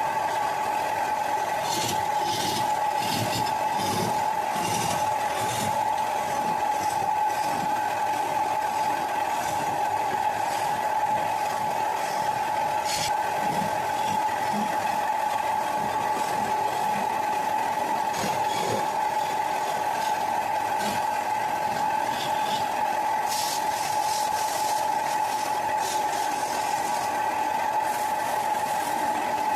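An electric power tool's motor running steadily, with a constant whine, and with bursts of scraping and ticking as it works the wood.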